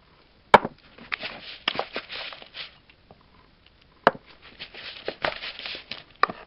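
Metal spoon stirring and scraping stiff oatmeal cookie dough in a bowl, with a few sharp clinks of the spoon against the bowl, the loudest about half a second in and about four seconds in.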